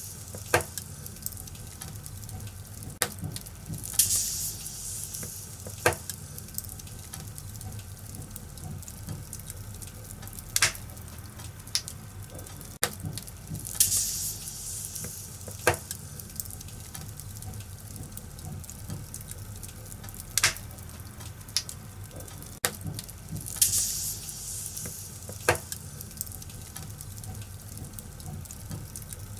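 Wood fire in a fireplace crackling: sharp pops every few seconds and brief hissing bursts, over a low steady rumble.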